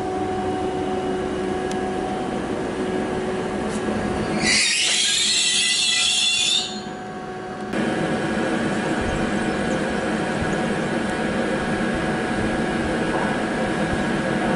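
Trenitalia Blues hybrid regional train running along the platform with a steady hum. About four and a half seconds in there is a loud, high-pitched squeal from the train that lasts about two seconds. After an abrupt cut, a Trenitalia Pop electric regional train approaches with steady running noise.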